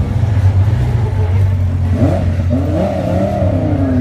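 Lamborghini Huracán Super Trofeo race cars' V10 engines running at low speed with a steady low rumble as they pull out onto the track. In the second half one engine revs, its pitch rising and then falling back.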